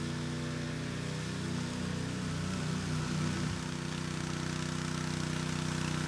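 Small gasoline engine of a walk-behind concrete power trowel running steadily as its blades work a fresh slab. Its note wavers briefly around the middle, then steadies.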